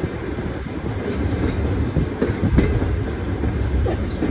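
Train running along the track: a steady rumble with occasional clicks from the wheels.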